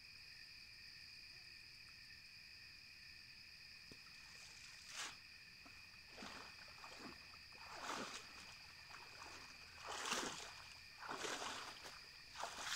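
Night insects trill steadily in high, even tones throughout. From about five seconds in come a series of water splashes and swishes, one every second or two, as a cast net is hauled in from the water.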